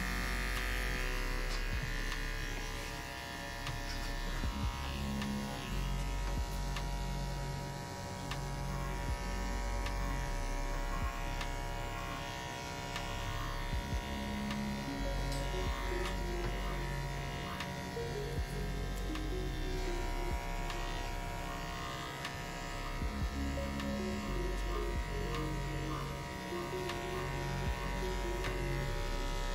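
Corded electric dog clippers running with a steady buzz as they clip through a dog's shaggy coat, with background music and its low bass notes underneath.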